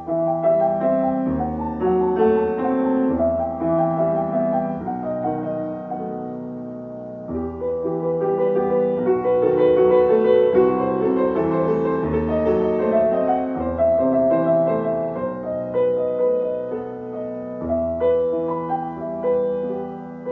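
Solo piano playing a contemporary classical piece, a softer passage giving way to fuller, louder playing about seven seconds in.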